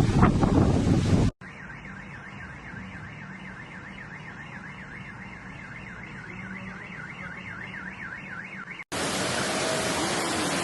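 Warbling electronic alarm siren, its pitch swinging quickly and evenly up and down over a low hum. It is framed by loud rushing floodwater and wind on the microphone, which cut off suddenly early on and cut back in near the end.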